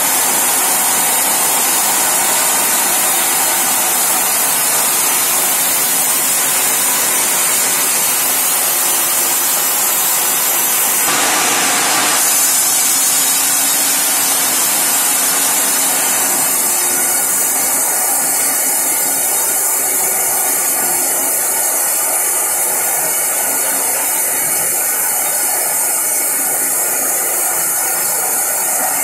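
Sawmill machinery running with a loud, steady noise, with a brief louder rush about eleven seconds in.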